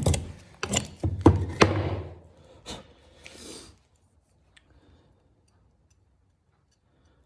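Hand-forged 1075 steel knife cutting: a quick run of sharp cutting strokes and knocks, one more stroke, and a short rasp, then it goes quiet about halfway through.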